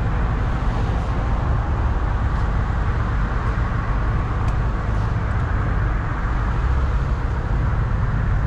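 Steady low rumble of street noise, with motor vehicles running and traffic.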